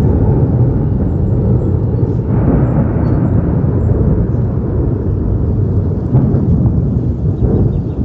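Thunder: a loud, low rolling rumble that starts abruptly and brightens about two seconds in.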